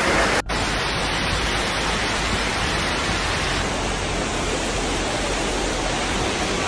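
Steady rushing noise of fast-flowing muddy floodwater pouring through a street, with a brief break about half a second in.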